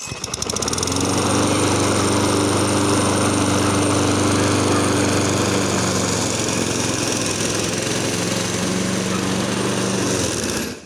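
Walk-behind gas rotary lawn mower's small engine running steadily as it is pushed through long grass, cutting it. The sound cuts off suddenly near the end.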